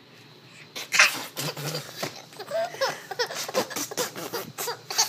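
A seven-month-old baby laughing in short, breathy bursts, several a second, starting about a second in, with squealing giggles in the middle.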